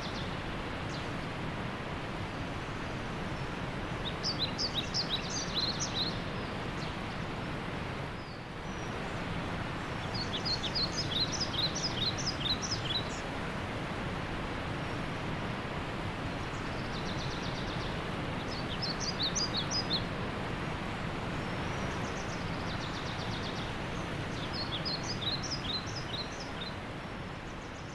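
Waterfall rushing steadily. A bird sings over it four times: spells of quick, high, short chirps, roughly every six or seven seconds.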